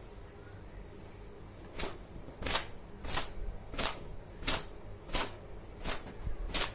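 Long wet or damp hair being worked in steady strokes, eight short swishes about two-thirds of a second apart.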